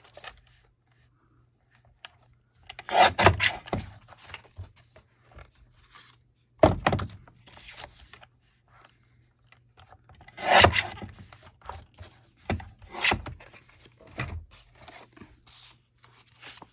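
Paper being handled and cut on a paper trimmer: several short scraping, rustling bursts and one sharp knock about seven seconds in.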